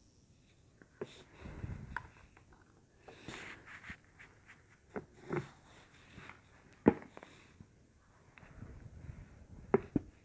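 Knife tip scraping and clicking in the head of a small, rusty phone screw as it is turned out by hand: soft, irregular scraping with a few sharp clicks, the loudest about seven seconds in.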